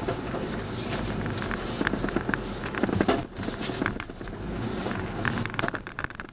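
Truck engine running, heard from inside the cab as a steady low rumble, with scattered clicks and rattles throughout.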